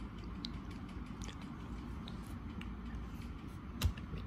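Hands handling a soft vinyl figure on a card stand: faint small clicks and rustles, then one sharp knock near the end as the figure is set down on the card.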